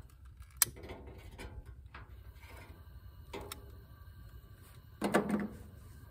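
A long-reach lighter being clicked at a camp stove burner: scattered sharp clicks and small knocks, the sharpest just under a second in, then a louder short clatter about five seconds in.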